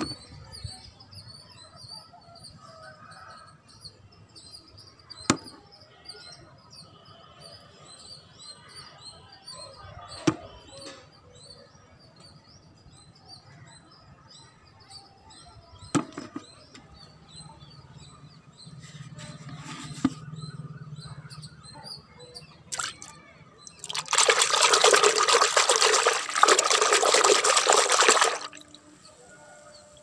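Small birds chirping steadily in the background, with four sharp knocks spread through the first twenty seconds. Near the end, water pours loudly for about four seconds, then stops suddenly.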